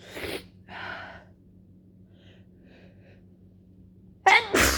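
A woman with a cold takes two short, breathy gasps near the start. About four seconds in comes a sudden, loud sneeze, part of a run of wet, snotty sneezes late in a cold.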